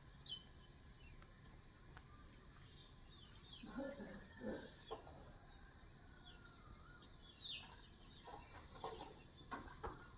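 Faint outdoor bird sounds: a chicken clucking briefly about four to five seconds in, and a few short chirps now and then, over a steady high hiss.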